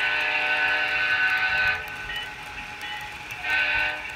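Horn of an HO-scale model Conrail Dash 8 diesel locomotive, played by its sound decoder: one long blast that stops about two seconds in, then a short blast near the end.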